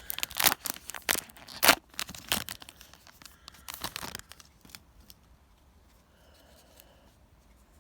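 Foil Yu-Gi-Oh booster pack wrapper being torn open and crinkled: a quick run of sharp rips and rustles that dies away after about four and a half seconds.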